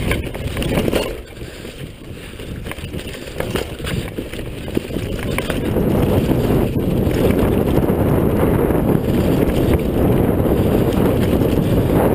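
Wind buffeting the microphone of a downhill mountain bike ride, mixed with tyre rumble and sharp rattles of the bike over a rough dirt trail. It eases off briefly early on, then runs louder and steadier from about halfway.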